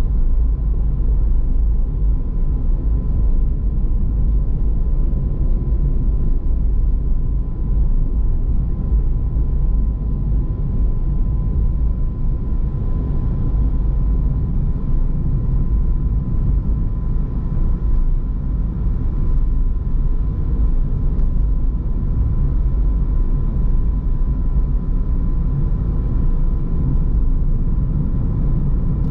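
Car being driven: a steady low rumble of road and engine noise, with a faint thin steady tone running above it.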